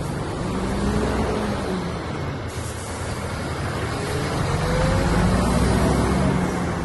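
Heavy truck engine running, its pitch swelling and easing twice.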